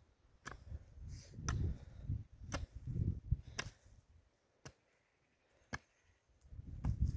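Repeated blows of a hand tool at work, sharp knocks about once a second mixed with duller low thuds, dropping almost to silence for about two seconds past the middle before the thuds resume.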